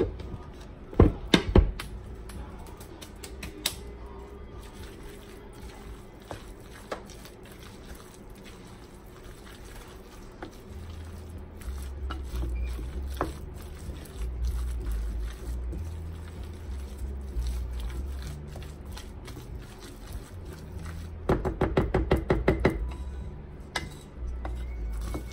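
Wooden spoon stirring thick turkey salad in a glass mixing bowl, knocking sharply against the bowl a couple of times about a second in and in a quick run of knocks near the end. Background music with a low bass line plays underneath.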